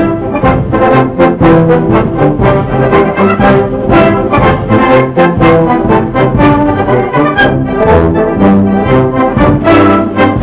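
Brass band playing a march, held brass notes over a steady beat.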